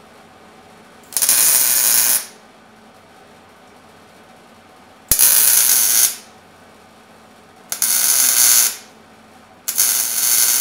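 Wire-feed welder laying four short tack welds, each about a second long, fixing a bent steel tube to a steel mount plate. A low steady hum sounds between the welds.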